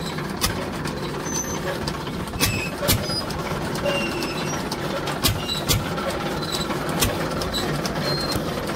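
Belt-driven chaff cutter (toka) chopping green fodder as it is fed in, powered by a stationary engine running steadily underneath. Sharp knocks and clicks from the cutter come at irregular intervals over the engine's low drone.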